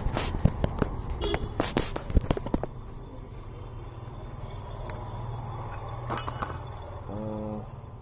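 Metallic clicks and clinks from handling a Zippo lighter case and its butane insert, a quick run of them in the first two and a half seconds, then only a few, over a steady low rumble.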